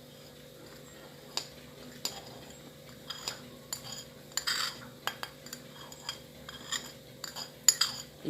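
A small spoon clinking and scraping against a dish in scattered, irregular taps, as ground seeds are spooned into honey.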